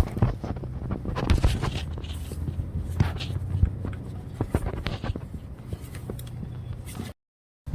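Hands wiping down the area around the oil drain hole under the car: irregular light scuffs, rubs and clicks over a low steady background rumble, cutting out abruptly for a moment near the end.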